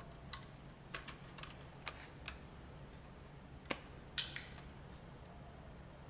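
Hand wire stripper clicking and snipping on insulated copper wires as they are cut and stripped: a scatter of sharp clicks, the two loudest a little past the middle.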